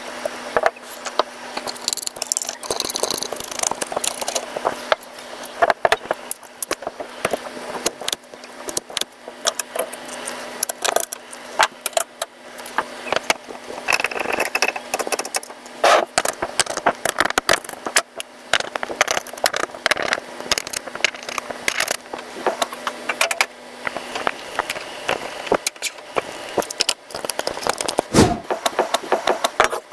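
Computer hardware being handled and fitted: a steady stream of small clicks, rattles and scrapes of plastic and metal parts. A faint steady hum stops about three-quarters of the way through, and there are a couple of low thumps near the end.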